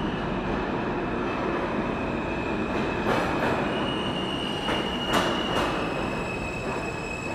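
Subway train running through the tunnel: a steady rumble with a high, held wheel squeal and a few sharp clacks over the rails around the middle.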